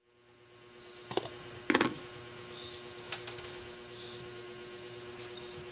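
A few sharp clicks and clatters of kitchen utensils and cookware being handled, the loudest a short clatter about two seconds in, over a steady hum.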